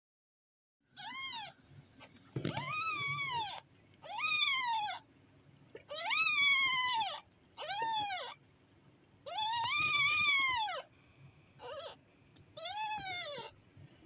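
Newborn kitten crying: about eight high-pitched mews, each rising then falling in pitch, some short and some drawn out for over a second, with pauses between.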